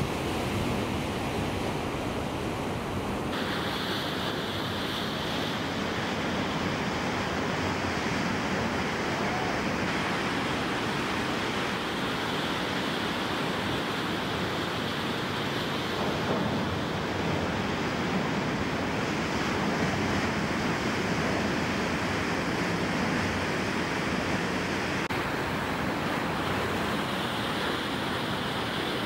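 Ocean surf breaking and washing ashore: a steady, continuous rush of water. Its brightness shifts abruptly about three seconds in and again near the end.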